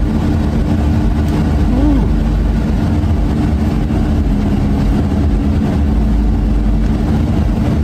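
Steady road and engine noise of a moving car, heard from inside the cabin as a constant low rumble and drone.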